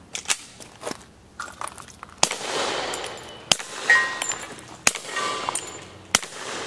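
Suppressed FNP-45 Tactical .45 ACP pistol with a SilencerCo Osprey 45 suppressor fired in a slow string, a shot roughly every second and a bit. Steel target plates clang and ring briefly after some of the hits.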